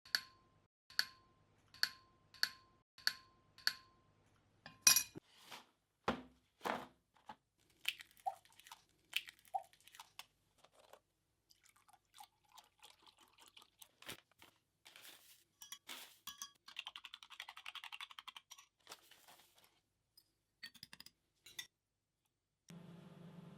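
Kitchen preparation sounds: a run of sharp taps and clinks of utensils against bowls and dishes, with a short stretch of rapid scraping or stirring in the middle. A steady low hum starts near the end.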